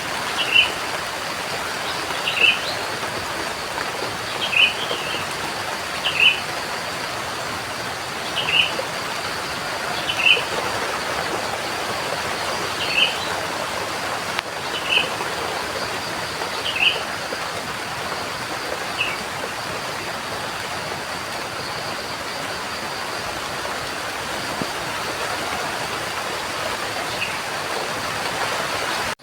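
Steady rain falling, with a bird giving short single chirps every second or two; the chirps thin out about two-thirds of the way through, with one more near the end.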